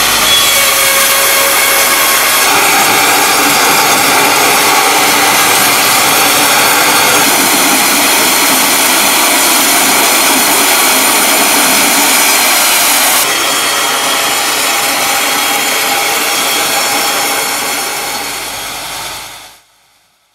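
Serra Africa SL 160 horizontal bandmill sawing through a large oak log: a loud, steady sawing noise. About 13 s in the sound changes and gets somewhat quieter, then it dies away shortly before the end.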